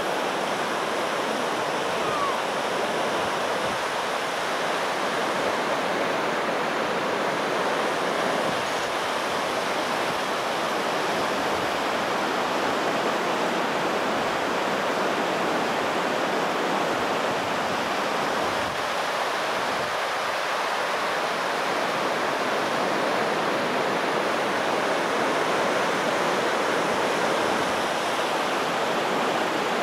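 A fast river running over shallow rapids, a steady rushing of water.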